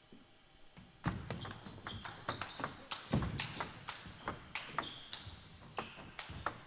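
Table tennis rally: after a quiet second before the serve, the ball clicks off the bats and the table in quick succession, several hits a second.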